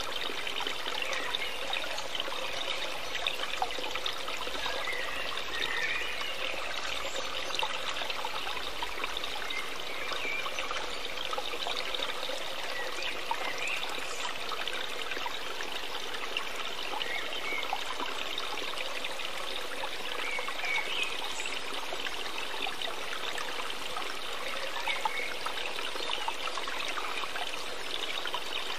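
Steady trickling of flowing water, like a small stream, running on evenly with a few faint short chirps here and there.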